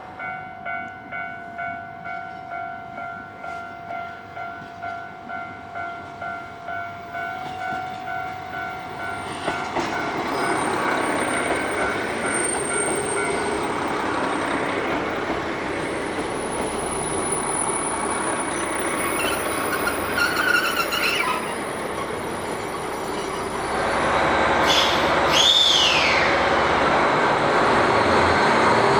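A railway level-crossing bell ringing evenly, a little under two strikes a second, for about ten seconds. Then a train's running noise swells and holds loud, with a short high squeal that falls in pitch near the end.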